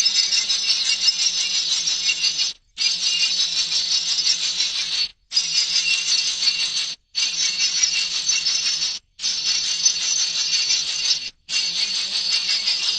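Dense chorus of high, chattering calls from many small birds, such as young birds begging for food. It is played in stretches of about two seconds, each cut off by a brief silence before it starts again.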